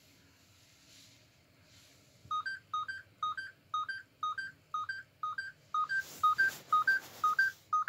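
An EMF meter's alarm starts about two seconds in: a two-tone electronic beep, a lower note then a higher one, repeating about twice a second, as the meter registers a spike up into its yellow range. A rustle of handling comes near the end.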